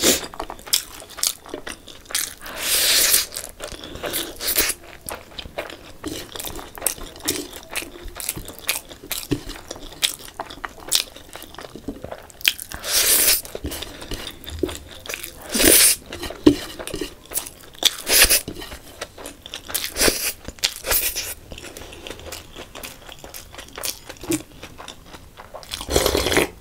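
Eating noodles by hand: wet chewing with many small mouth clicks, broken by several loud slurps of noodles, each about a second long. Near the end a loud slurp as liquid is drunk straight from a glass bowl.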